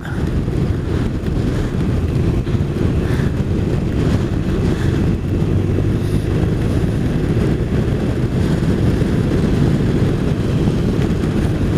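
Motorcycle riding at a steady speed: constant wind rush buffeting the microphone, with the engine and road noise underneath.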